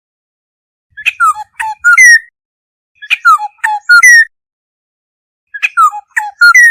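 Black-hooded oriole calling: three phrases, each a quick run of about four clear notes, mostly slurring downward, with a pause of a second or more between phrases.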